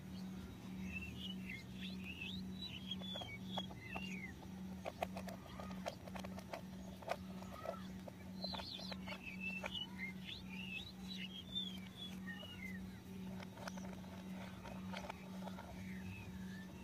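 Hard plastic toy-train parts clicking and knocking in clusters as they are handled and a plastic screw is turned with a toy screwdriver, over a steady low hum, with two bursts of quick high chirps.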